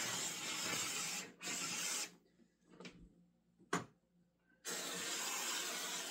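Handheld Moshi garment steamer hissing steadily as steam blows through its fabric attachment onto a dress. The hiss breaks off briefly after about a second, then stops for about two and a half seconds, with a couple of clicks, one sharp, before it resumes.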